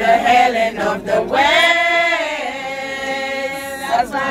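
A group of people singing together, unaccompanied, holding a long final note from about a second and a half in until it breaks off near the end.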